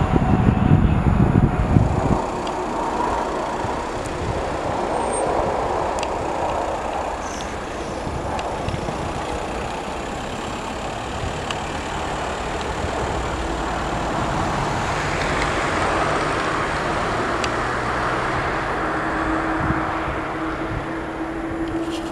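Airliner jet engines on the airfield. A landing jet's loud low rumble runs for about two seconds and then stops abruptly. After that comes the steady rush of a taxiing twin-engine airliner's jets, which swells and fades slowly, with a faint steady whine near the end.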